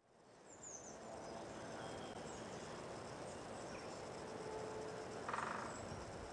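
Faint steady outdoor hiss fading in, with a few faint high chirps and a short buzzy trill about five seconds in.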